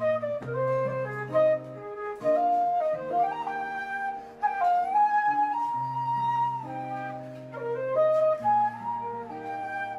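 Wooden Irish flute playing a melody of held notes with slides and ornaments, over an acoustic guitar accompaniment with low bass notes.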